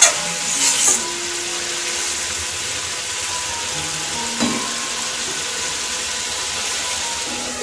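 Fish curry simmering and sizzling in a kadai on a gas stove, a steady hiss, with a couple of spatula stirs right at the start and a single light knock a little past halfway.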